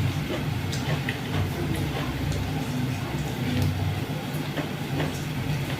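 Close-up chewing and mouth sounds of someone eating, over a steady low hum, with a few faint clicks.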